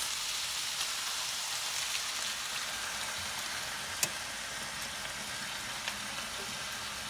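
Ground beef and mushrooms sizzling in a hot skillet as tomato sauce is poured in from a jar: a steady hiss that eases off a little, with a single sharp click about four seconds in.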